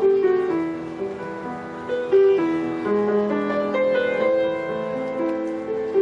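Instrumental music: a melody of held notes over chords, with no singing.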